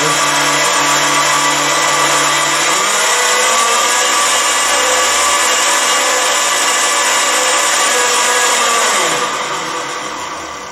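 Mini lathe with a brushless DC motor running under power, a loud, steady whirr of motor and gear train. It drops in level and quietens about nine seconds in.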